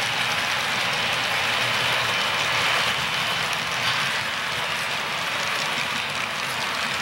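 HO scale model freight train rolling by, its covered hopper cars' wheels running on the rails in a steady rush.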